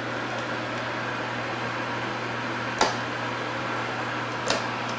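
Space heater running: a steady whir with a low hum, and two short clicks, one about three seconds in and one near the end.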